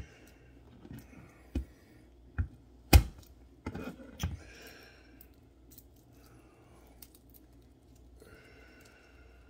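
A few sharp knocks on a plastic cutting board, the loudest about three seconds in, with the dry crackle of papery garlic skin being peeled off the cloves by hand.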